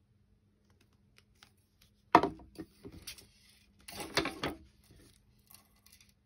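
Knocks and clatter of craft tools handled on a wooden desktop as a plastic glue squeeze bottle is set down and scissors are moved. There is one sharp knock about two seconds in, a few lighter clicks, then another cluster of knocks and rustling around four seconds.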